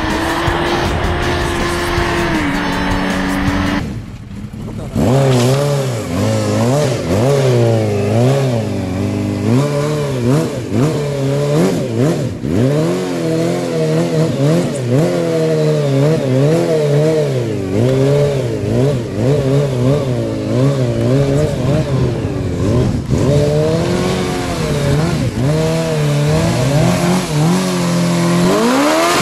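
For the first few seconds a motorcycle engine holds high revs. After a brief dip, a Suzuki Hayabusa's inline-four engine revs up and down over and over as it spins its rear tyre in a burnout.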